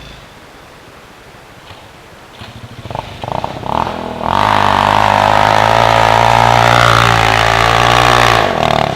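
ATV engine revved hard and held at high revs for about four seconds, then cut off abruptly near the end. A rising, uneven clatter leads up to it.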